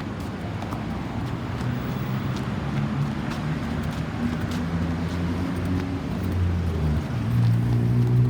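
Road traffic, with a vehicle engine running and growing louder as it approaches. Its hum steps up in pitch near the end.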